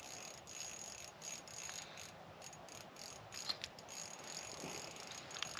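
Faint, irregular clicking of an ice-fishing rod's small spinning reel being cranked as a fish is reeled up.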